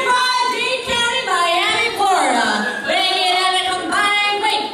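Music with a woman singing a melody, her voice holding notes and gliding between them.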